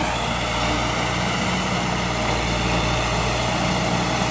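ACE Hydra mobile crane's diesel engine running steadily as the crane drives slowly across the field.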